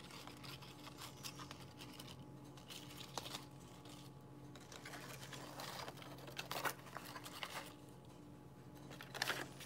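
Faint rustling and scratching of paper banknotes being handled and shuffled on a tabletop, a few soft bursts scattered through, over a low steady hum.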